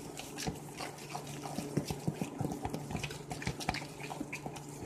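A utensil stirring wet, over-moist dumpling dough in a bowl: irregular soft clicks and wet squelches over a steady low hum.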